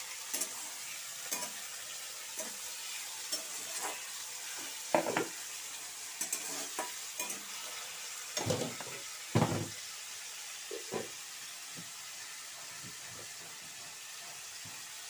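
Potato sticks frying in hot oil in a wok, a steady sizzle, while a spatula stirs them with a few louder knocks and scrapes against the pan around the middle.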